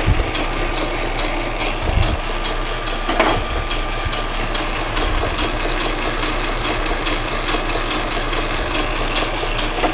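Metal lathe running steadily, with a hand file scraping against the spinning workpiece near the start and a brief sharper scrape about three seconds in.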